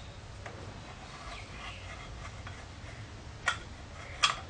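Screwdriver backing out small screws from a mini lathe's motor cover: faint ticks and scraping, then two sharp metallic clicks near the end.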